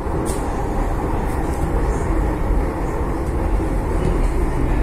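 Delhi Metro train running at speed, heard from inside the carriage: a steady low rumble of wheels on rail, with a few faint high squeaks in the first couple of seconds.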